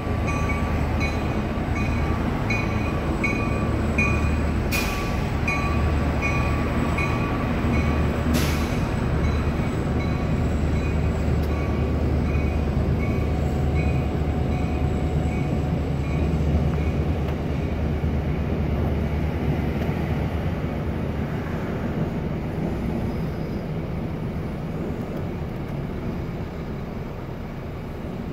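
MBTA diesel commuter train crossing a steel truss railway bridge: a steady low running sound with a faint high whine and a regular clicking about twice a second, plus two sharp clanks in the first ten seconds. It fades gradually over the last third as the train passes.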